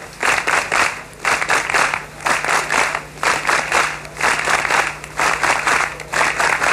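Large crowd clapping in unison in a steady rhythm, a burst of claps about once a second.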